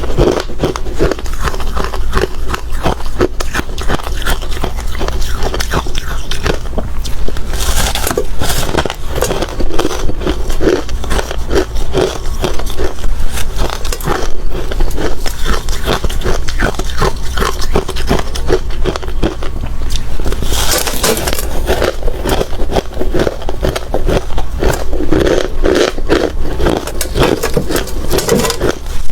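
A person biting and chewing hard ice, a dense, uneven run of sharp crunches with no real pause, over a steady low hum.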